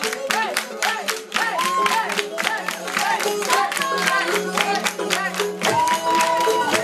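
Pop song playing, with singing over a quick, steady beat.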